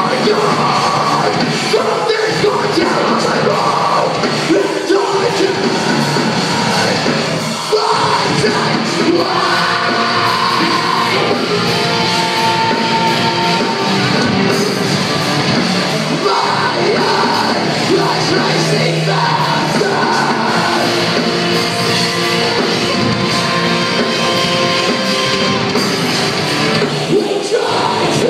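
Live heavy rock band playing loud through a venue PA: distorted electric guitars, bass and drums with a vocalist singing and shouting over them.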